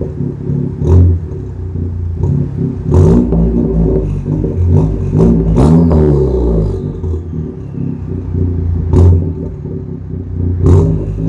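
Chevy Cruze engine and exhaust running under load, its pitch rising and falling with revs, with about six sharp pops over the engine noise.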